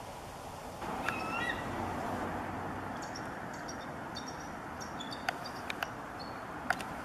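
Bald eagles calling: a short pitched call about a second in, then a run of brief, high chirps. A steady background hiss sits under the calls, and a few sharp clicks come near the end.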